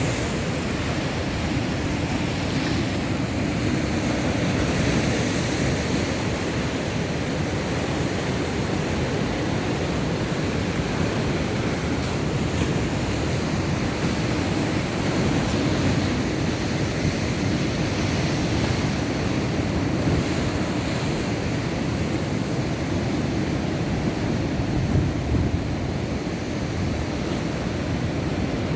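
Heavy surf from a rough sea breaking and washing in, a steady rush of water with no separate crashes standing out, with wind buffeting the microphone.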